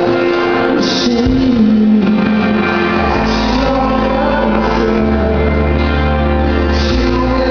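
Live pop-rock band playing: strummed acoustic guitar over held bass notes, with a man singing.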